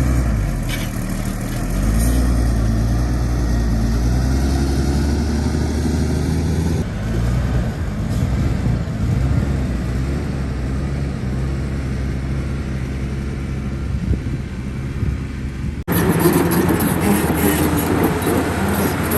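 Heavy diesel engines of an excavator and dump trucks at work, running steadily with the engine note rising and falling under load. About 16 seconds in the sound cuts abruptly to louder, harsher machine noise.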